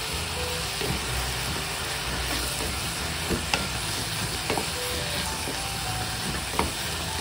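Squid rings, onion and carrot sizzling as they sauté in a metal pot, stirred with a wooden spoon that knocks against the pot several times.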